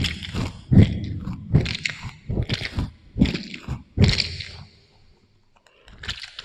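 Close-miked chewing and biting of fruit through an echo effect: crunchy, wet chews about every 0.8 s, each trailing off in an echo. They pause for about a second near the end, then resume.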